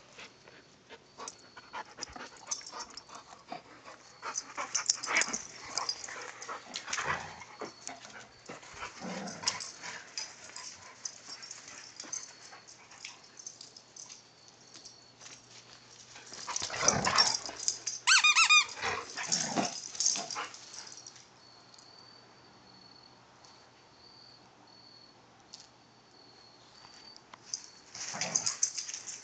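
Two dogs playing rough, making dog play noises in bouts: one a few seconds in, the loudest a little past halfway with a short high-pitched call in it, and another near the end.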